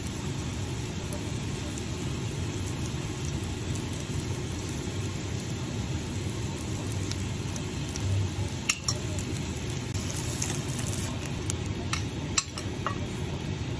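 Food sizzling in a frying pan with a steady hiss, while a metal spoon stirs and scrapes the pan, clinking against it a few times in the second half.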